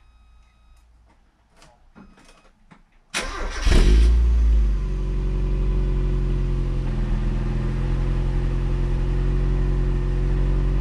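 A few faint clicks. Then, about three seconds in, the 1990 Mazda MX-5's 1.6-litre four-cylinder engine cranks briefly and fires on a cold start. It flares up in revs and settles into a steady idle.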